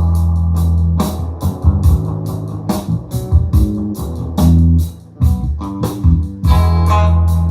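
Rock-style music with bass guitar, guitar and drums, played back through a QSC K8 powered loudspeaker.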